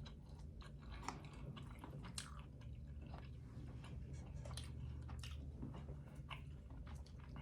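Close-miked chewing, with soft wet mouth sounds and small irregular clicks, over a faint low hum.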